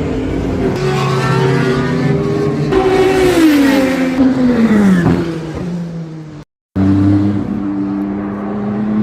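Race car engines running at the circuit: one car's engine note falls sharply in pitch as it passes, about three to five seconds in. The sound cuts out for a moment, then engines come back at a steadier pitch.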